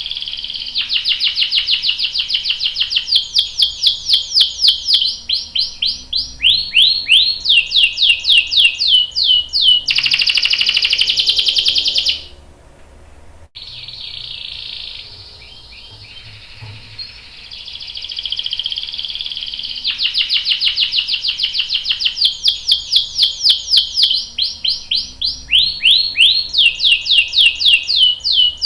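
Canary singing a long song of fast repeated trills and a dense buzzing roll. The song breaks off about twelve seconds in, comes back softer, then builds to loud rapid trills again.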